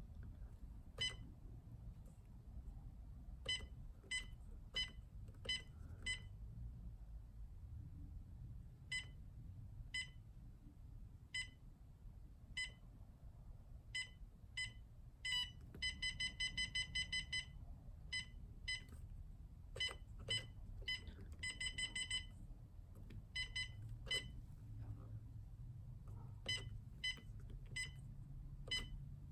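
Humminbird Helix 7 G3N fish finder's key-press beeps as its Down Imaging colour palettes are stepped through. Short, high single beeps come every second or so, with a quick run of six or seven beeps a second about halfway through and another shorter run a few seconds later.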